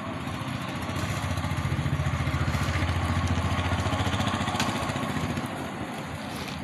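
A motor vehicle engine running close by, with a steady low pulsing hum that grows louder about a second in, holds, and fades away a little after the middle.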